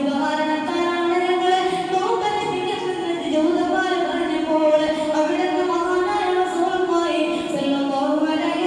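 A boy's unaccompanied voice chanting a melodic line, holding long notes that slide slowly up and down.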